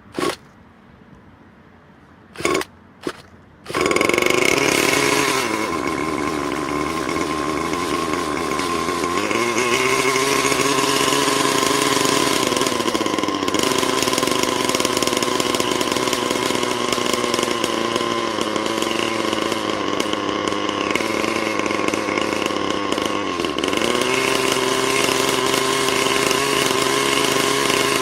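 Thunder Tiger Redline RL-53H two-stroke nitro glow engine on an RC helicopter, running without rotor blades for break-in on its very first start. After two brief bursts it catches about four seconds in and runs steadily. Its pitch sags and comes back up several times as the throttle is changed.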